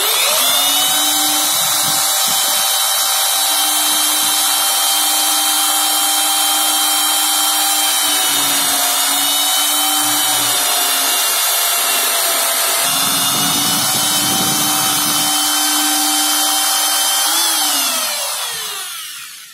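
Electric drill mounted in a drill-press stand starts up and runs with a steady whine while its bit bores into a wooden block. The pitch sags slightly a few times as the bit bites. Near the end the drill is switched off and winds down to a stop.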